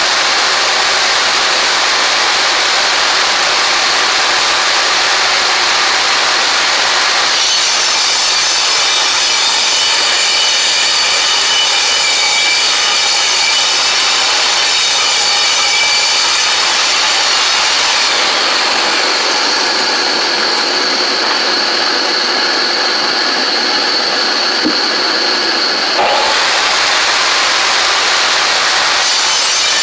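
Ridgid table saw running and ripping planed boards into trim stock: a steady loud whine whose pitch shifts as the wood feeds through the blade.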